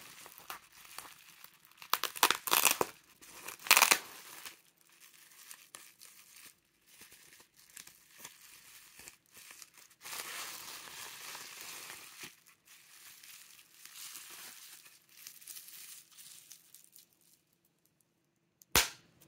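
Bubble wrap crinkling and rustling as it is unwrapped by hand from a bundle of small ink sample vials, with loud sharp crackles about two and four seconds in. A single sharp knock near the end.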